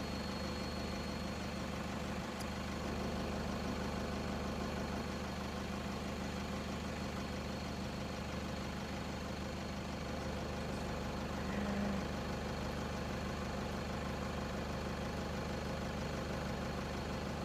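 Vehicle engine idling steadily, an even hum that does not change in pitch, with a brief slightly louder low tone about twelve seconds in.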